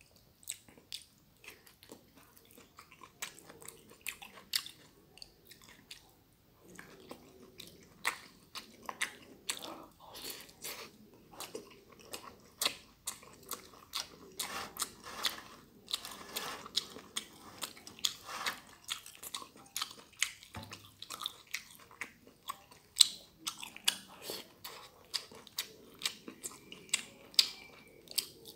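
Close-miked chewing and biting of a mouthful of stir-fried glass noodles with goat meat and tomato: an irregular run of short smacks and clicks, sparser in the first couple of seconds.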